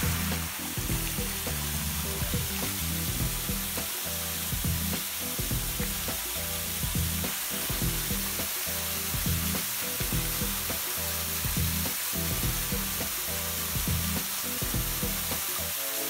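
Background music with a beat and a moving bass line, over a steady hiss of flowing water from a thin waterfall and stream.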